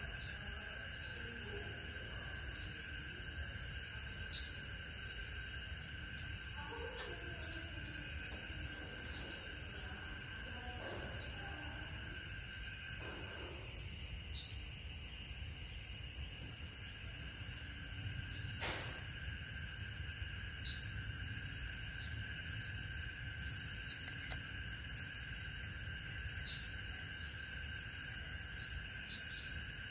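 Night insect chorus of crickets: a fast, even high trill over steady high-pitched drones, with a shorter chirp repeating just under once a second. A single sharp click sounds about two-thirds of the way through.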